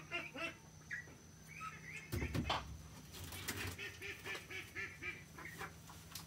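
Domestic fowl, ducks or geese, calling over and over: short repeated honking calls, at one point about four a second. A louder knock and rustle about two seconds in, with a faint steady low hum underneath.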